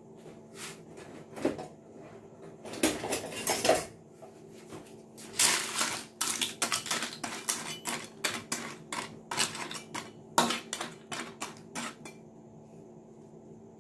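Metal spatula knocking and scraping against an aluminium wok as raw crackers are stirred in cold, unheated oil, so there is no sizzle. The knocks come in quick irregular runs and stop near the end.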